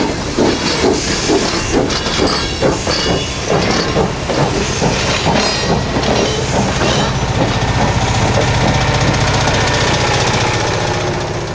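Essex Terminal Railway No. 9, a 0-6-0 steam locomotive, working past with its exhaust chuffing about twice a second over steam hiss. After about six seconds the chuffs fade and the passenger cars roll by with a steady rumble and wheel clatter, fading out at the end.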